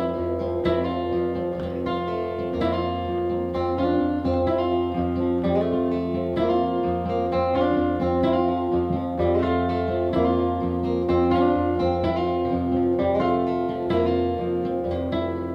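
Acoustic band playing the instrumental intro of a blues-rock song, led by picked acoustic guitar over a steady low bass line.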